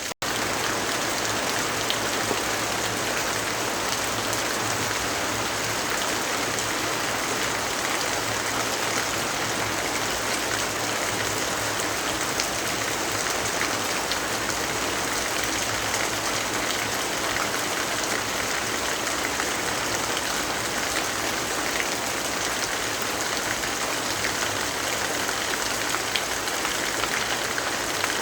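Steady rainfall, an even hiss with a few faint, scattered ticks.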